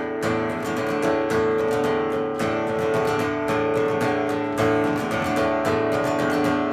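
Live acoustic guitar strummed in a steady rhythm during an instrumental break in a folk song, with a harmonica playing held notes over it.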